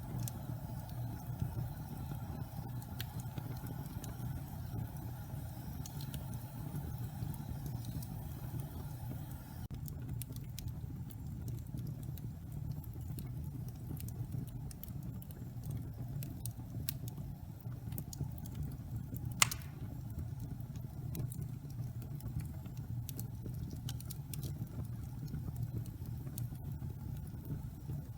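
Wood fire burning: a low steady rumble with scattered crackles, and one sharp, loud pop a little over two-thirds of the way through.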